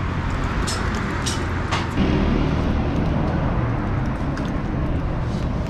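Road traffic running past, a steady low rumble, with a few sharp clicks in the first two seconds.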